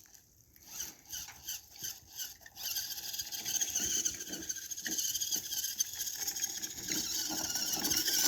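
Redcat Everest-10 RC crawler's electric motor and gear drive whining, first in a string of short blips of throttle, then running steadily for about six seconds.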